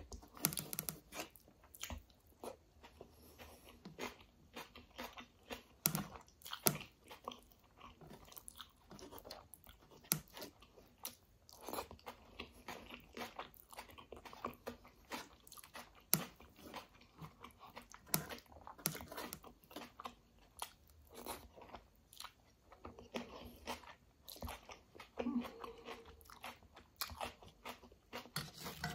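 Close-up chewing and crunching of kadhi chawal with raw onion, eaten by hand: irregular sharp crunches and wet mouth clicks.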